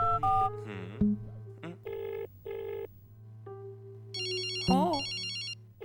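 Cartoon telephone sound effects: a couple of keypad button beeps at the start, then short pulsed ringing tones, then a high trilling telephone ring near the end, over soft background music.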